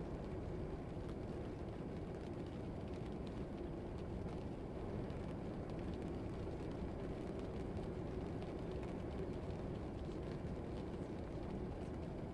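Steady, muffled low rumble of a classroom ambience track, with a faint hum and a few faint scattered clicks.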